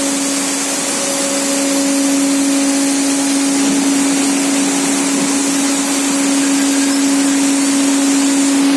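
CNC machine tool running steadily: a constant mid-pitched hum under an even hiss, with no change through the stretch.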